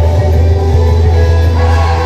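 Loud music with a heavy, steady bass and several held notes; the bass drops out near the end.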